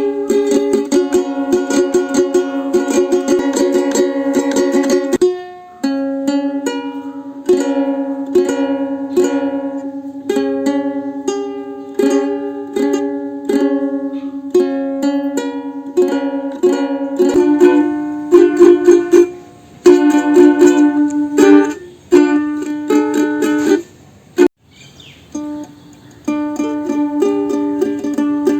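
Ukulele being strummed in quick, even strokes, holding each chord for several seconds before changing to the next, with a few short breaks between chords.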